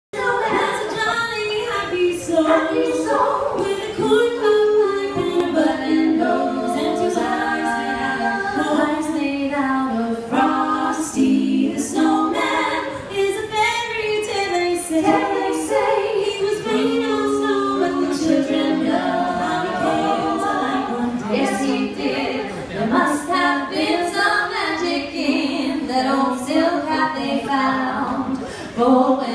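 Female vocal trio singing a cappella in harmony.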